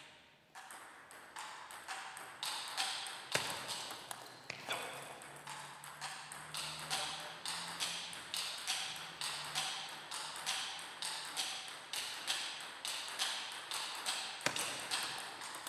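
Table tennis ball clicking off bats and table in a steady run of about two hits a second, echoing in a large hall.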